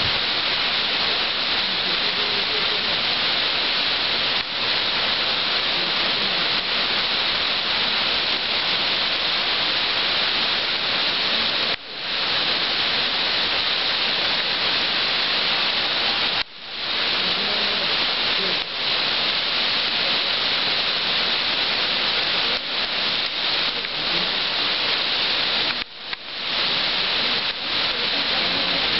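Heavy rain pouring steadily onto pavement and parked cars: a dense, even hiss, briefly dropping out three times.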